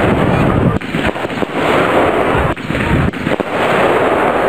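Aerial fireworks bursting overhead: a continuous rush of crackling with several sharper bangs.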